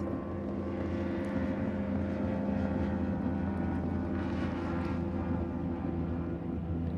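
Speedboat engine running steadily at high speed, a continuous drone as the boat speeds across the water.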